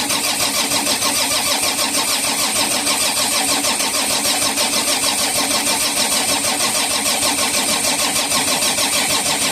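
Volvo D6D diesel in an EC210BLC excavator cranking on the starter motor with an even, rapid, steady pulse, turning over without catching. The new primer pump is delivering fuel, but the fuel system has not yet been bled of air.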